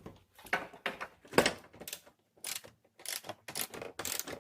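Ratchet and 17mm socket working the nut off an upper control arm bolt: a run of irregular clicks and metal clanks, about a dozen in all.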